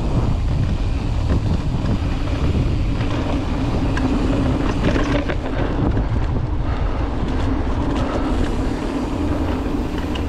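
Mountain bike rolling over a rough dirt trail, with wind buffeting the GoPro's microphone, tyre rumble and scattered clicks and knocks from the bike rattling over the ground.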